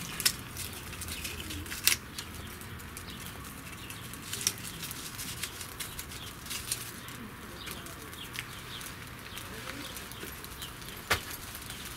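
Dry birch bark being pulled and torn apart by hand into strips for tinder: soft rustling and crackling with a few sharp snaps, the loudest about two seconds in and near the end.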